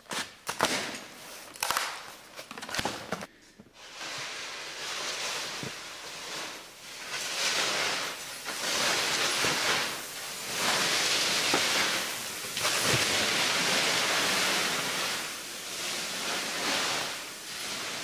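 Ski boot clicking into a binding, with a few sharp clicks and knocks. From about four seconds in, skis hiss and scrape over the snow in a run of turns, swelling and easing every second or two.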